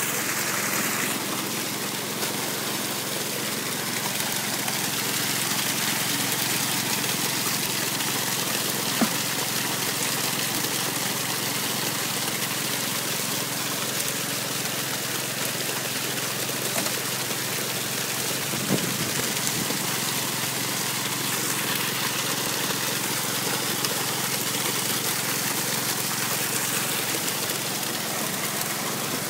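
Steady rush of water and muddy slurry pouring through a high banker's hopper and sluice, over the steady running of a Honda gasoline water pump engine. There are a couple of brief knocks along the way.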